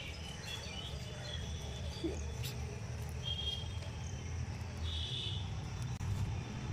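Outdoor ambience: a steady low rumble with a few short bird chirps scattered through it, the clearest about five seconds in.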